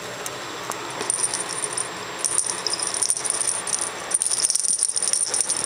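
Dangly flamingo cat toy rattling as it is jiggled on its string and pawed at by a cat. The bright, jingly rattle starts about a second in and becomes busy and continuous from about two seconds in.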